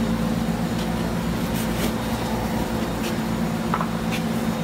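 Steady low mechanical hum with a constant pitch, with a few faint short hissy ticks over it.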